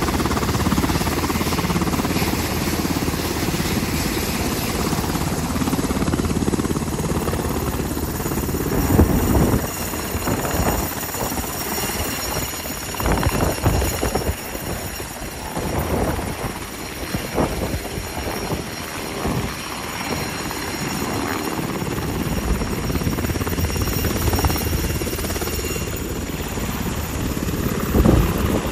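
Sikorsky UH-60 Black Hawk helicopter's twin turboshaft engines and main rotor running at flight power, a dense rushing noise with a steady high turbine whine, as it lifts off and hovers low. From about nine seconds in, the rotor downwash buffets the microphone in irregular gusts.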